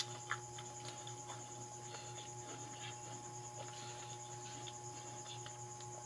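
Faint scattered clicks and taps of fingers picking noodles and food bits off a tabletop, the sharpest about a third of a second in, over a steady electrical hum.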